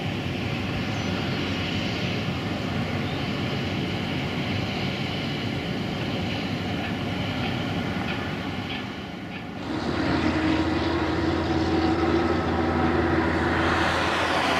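GE90 turbofan jet engines of a Boeing 777-200ER running at takeoff power on the runway roll: a steady roar with a whine. About ten seconds in, the sound dips for a moment, then grows louder, with a deep rumble and a steady hum.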